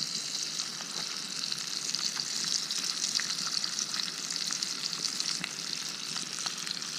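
Bacon frying in a pan: a steady sizzle with small crackles and pops of spitting fat throughout.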